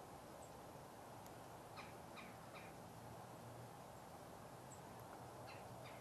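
Faint wild birds calling: three quick, harsh notes about two seconds in and another run of them starting near the end, with a couple of thin high chips, over a steady low hum.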